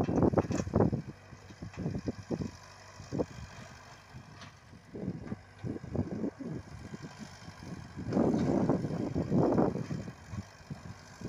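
Komatsu PC78UU mini excavator working in loose dirt: its diesel engine runs under irregular knocking and scraping from the bucket and steel tracks. The clatter is loudest in the first second and again from about eight to ten seconds in.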